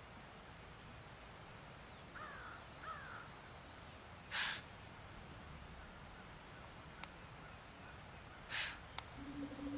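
Young whitetail buck snorting twice, about four seconds apart, each a short, sharp blast of air. It is a deer's alarm snort, aimed at the person it has spotted.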